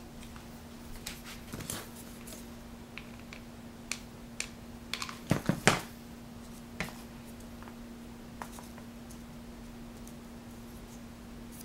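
Hands handling paper: light rustles and small clicks and taps as paper leaves are pressed and glued onto a rolled paper stem, busiest about five to six seconds in. A faint steady low hum runs underneath.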